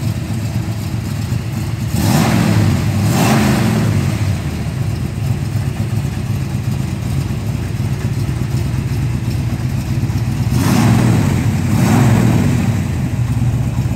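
1965 Ford Mustang GT350 tribute's V8 idling, blipped twice in quick succession about two seconds in and twice again about eleven seconds in.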